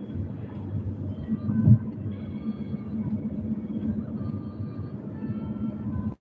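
Steady road rumble of a moving vehicle heard from inside the cabin, with music playing over it.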